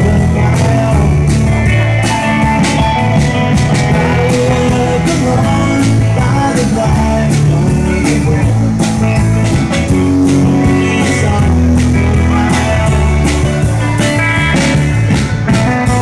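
Live band playing blues-rock: a drum kit beating steadily and guitar over a moving bass line.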